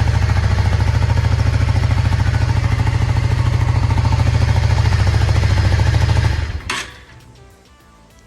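Yamaha V-Star 650's air-cooled V-twin engine running steadily, with its airbox off, while the carburetor mixture screws are being dialled in to get a stable idle. About six and a half seconds in the engine sound stops abruptly, and a single sharp click follows.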